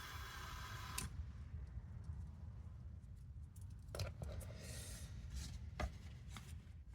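Handling noises of pull cord for a recoil starter being worked at the bench: a rushing rub that stops suddenly about a second in, then a few light clicks and a fainter rub.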